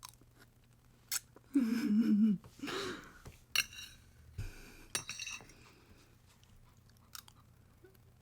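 Wet mouth smacking and chewing noises, with a short hummed "mmm" about two seconds in, a second brief pitched sound near three seconds, and a few sharp light clicks.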